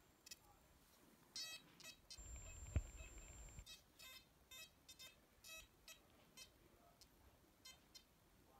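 XP Deus II metal detector giving short, faint, irregular target beeps as a red hematite rock carrying a small square of foil is passed close to its coil. A low rumble and a single knock of handling come a little before the middle.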